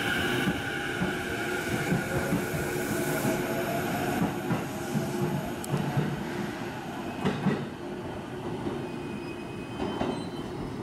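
JR East E233-series electric commuter train pulling into the platform. A motor whine glides in pitch and fades out over the first few seconds, while the wheels clack over the rail joints.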